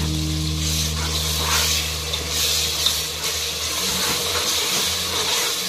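Tomato paste and green herb masala sizzling in hot oil, with a metal slotted spoon stirring and scraping through the mixture in short strokes.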